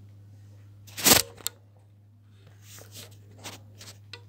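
Rustling and handling noises over a steady low electrical hum: one loud swish about a second in, a sharp click just after, then a run of short scuffs near the end.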